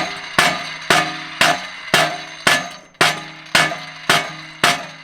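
Hammer striking metal in steady repeated blows, about two a second, each hit ringing briefly.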